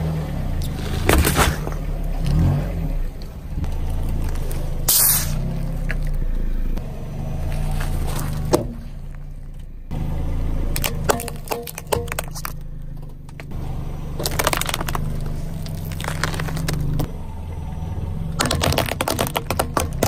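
A car's tyre rolling onto objects and crushing them, a run of cracks, crunches and scrapes with a few sharp snaps and quick clusters of cracking, over the car's engine running low.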